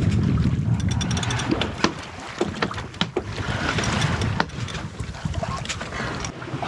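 Pearson 35 sailboat under way at sea: wind buffeting the microphone with a steady low rumble, and the sea washing past the hull, with scattered clicks and knocks aboard.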